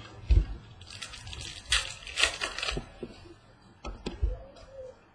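Baseball card pack wrapper crinkling and tearing, and cards rustling as they are handled, with a soft thump just after the start.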